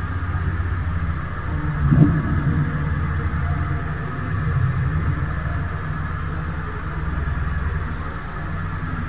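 Steady low rumble of wind buffeting a helmet-mounted camera's microphone aboard a Flying Junior sailing dinghy, with a single knock about two seconds in.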